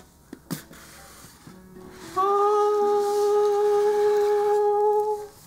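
A few soft clicks and rustles of the cardboard snack box being opened, then a single long sung 'aah' note held steady for about three seconds as the lid comes up, like a fanfare for the reveal.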